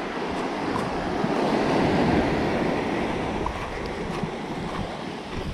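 Sea waves breaking and washing up a pebble shore, swelling to a peak about two seconds in and then easing off.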